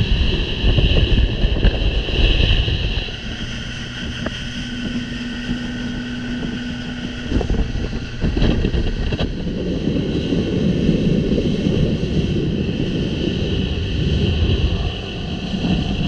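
A vehicle running, with a steady low rumble, wind noise and a steady high-pitched whine above it.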